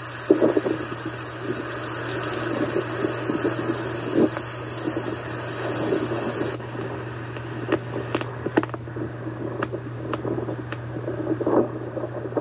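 Storm water noise: a rushing, splashing wash with irregular surges over a steady low hum, and a few sharp clicks in the second half.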